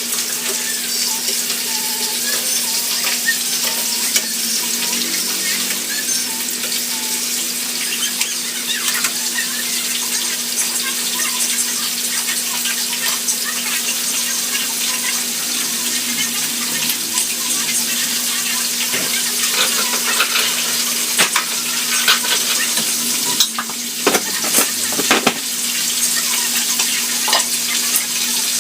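Food sizzling as it fries in a pan, with a spatula or spoon scraping and knocking against the pan as it is stirred, most busily in the second half.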